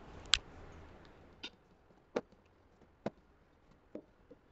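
Wooden rolling pin knocking against a steel plate as paratha dough is dusted and rolled out: six short, sharp knocks, irregularly spaced.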